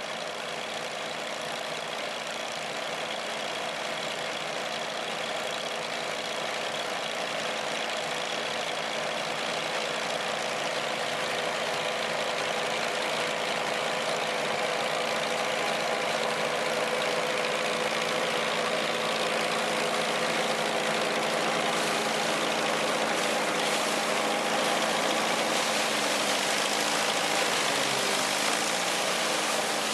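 Vintage combine harvester running steadily, its engine and threshing machinery making a continuous mechanical din that grows a little louder over the first half.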